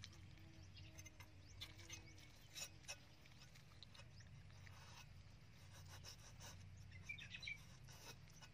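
Large knife blade scraping scales off a whole fish on a cutting board: faint, irregular scraping strokes.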